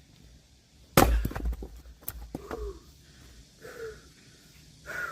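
An axe strikes a log about a second in, and the wood cracks and splits apart with a few smaller knocks after it. A few short breaths follow from the person splitting.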